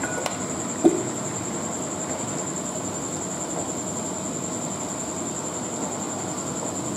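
Pea-and-potato ghugni curry simmering and bubbling in an open pan, a steady crackling bubble, with a wooden spatula stirring through it. A sharp knock about a second in.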